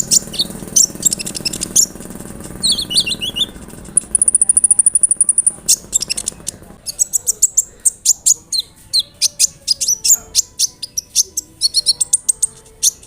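Kolibri ninja (a sunbird) singing: a rapid string of sharp high chirps and sweeping notes, a level high trill held for about a second and a half around the middle, then fast runs of clicking ticks and chirps.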